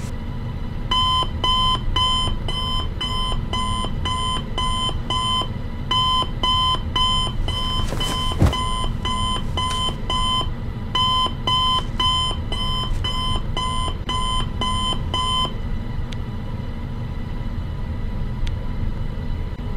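Electronic alarm beeping: short, even, high beeps about two a second, in runs of roughly ten with brief pauses between, stopping suddenly about three-quarters of the way through. A single thump comes about halfway through, over a steady low rumble.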